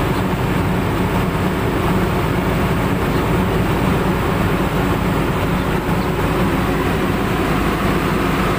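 Heavy machinery engine running steadily, a constant loud low drone with no change in pace.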